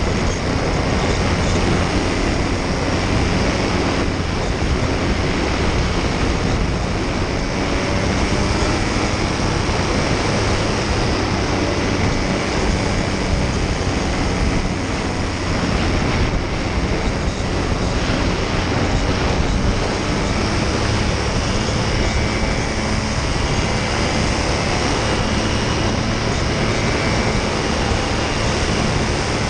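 Paramotor engine and propeller running steadily in flight.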